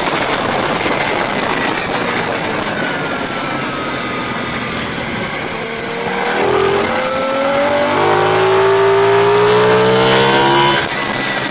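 Racing motorcycle engines running hard on a track with wind rush; from about six seconds in the engine note climbs in rising steps as the bikes accelerate up through the gears, then the level drops suddenly near the end.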